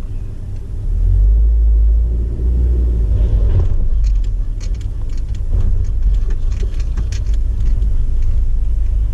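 Low, steady car rumble heard from inside the cabin, with scattered light clicks and taps over it.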